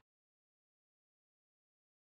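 Silence: the sound track is digitally silent.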